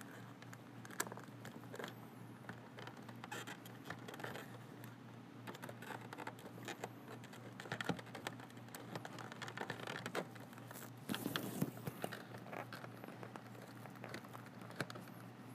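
Faint clicks, taps and scrapes of hard plastic being handled as a Panasonic KX-TGM450S cordless phone base unit in its wall-mount bracket is fitted onto the posts of a wall phone-jack plate, with a longer scrape about eleven seconds in.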